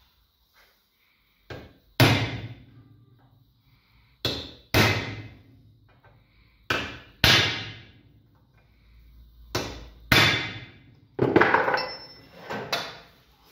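Hammer blows on a metal awning tube clamped in a bench vise: about ten sharp strikes, mostly in pairs half a second apart, each ringing briefly, with a quick run of blows near the end.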